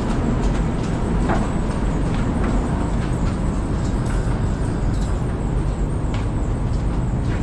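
Engine of a farm machine running steadily, with a few light knocks and clatters over it.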